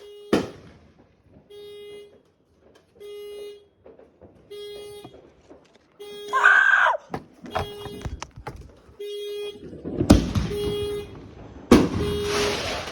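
A car horn sounding in short, even toots of about half a second, one every second and a half, a celebratory honking. Sharp bangs cut in near the start and twice in the last few seconds, the one about ten seconds in the loudest.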